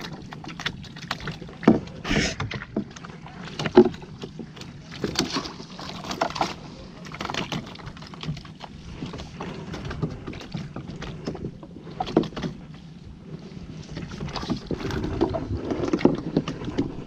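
Bamboo paddle strokes driving a small fibreglass canoe through shallow water: irregular swishes and splashes every second or so, with a few sharp knocks. The loudest knock comes a little under four seconds in.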